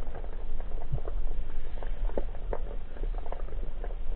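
Underwater ambience picked up by a submerged camera: a steady low rumble of water movement with irregular crackling clicks and ticks, several a second.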